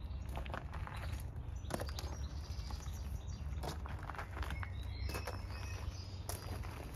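Footsteps crunching on gravel in irregular steps, with small birds chirping now and then, over a steady low rumble.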